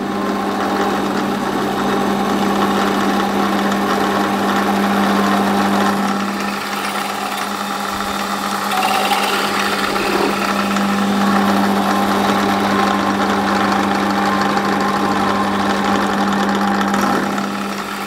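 Metal lathe running with a steady hum while a 1/4-inch twist drill, fed from the tailstock, cuts into a spinning phosphor bronze bar, dry. The bronze is sticky and grabs the drill, and it heats quickly. The cutting noise eases near the end.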